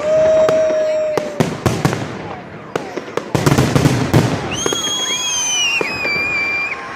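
Fireworks salute: a string of sharp bangs and crackling shell bursts. Long steady tones are heard over it, a low one at the start and higher ones in the second half.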